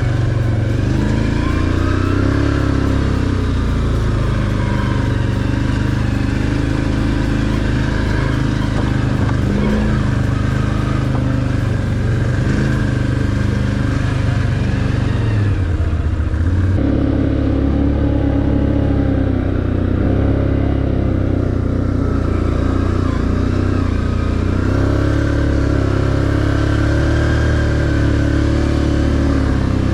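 Can-Am ATV engine running steadily under way on a dirt trail, its pitch rising and falling with the throttle. The engine note dips briefly about halfway through.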